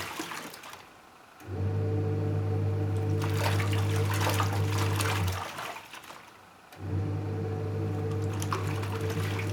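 Panasonic twin-tub washing machine agitating a load. The motor hums under churning, sloshing water. It runs for about four seconds, stops for over a second, then starts again: the wash pulsator's run-pause-reverse cycle.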